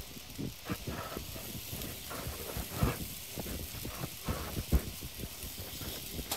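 Batter sizzling on a hot griddle, with irregular taps and scrapes of wooden picks against the plate, and a louder knock at the very end.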